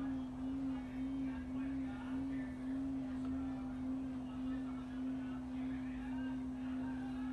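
A single sustained pure tone, fairly low in pitch, that wavers slightly during the first few seconds and then holds steady, with faint high chirps behind it.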